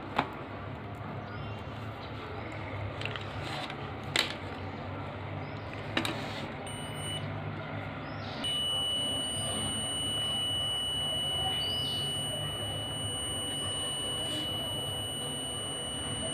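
Digital multimeter's continuity buzzer sounding a steady high-pitched beep from about eight seconds in, as the test leads close the circuit through the wire: the wire is intact. A few sharp clicks come before the beep.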